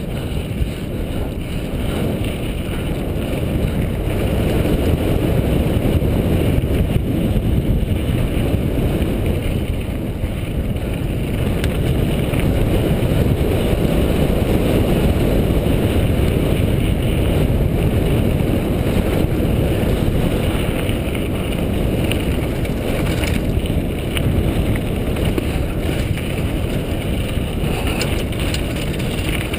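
Wind buffeting a helmet-mounted GoPro's microphone as a mountain bike rolls fast down a dirt singletrack, a steady low rumble with the tyres and bike rattling over the trail underneath.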